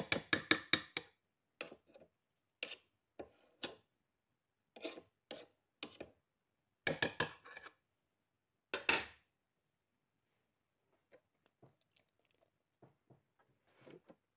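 Stand mixer's flat beater slapping thick choux pastry dough against a stainless-steel bowl: rapid sticky clicks, about six a second, in bursts. The bursts stop a little after halfway, leaving only faint scattered ticks.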